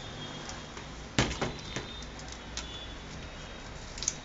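Light clicks and taps from a laptop LCD panel and its metal hinge bracket being handled: one sharper click about a second in, then a few fainter ones, and another near the end.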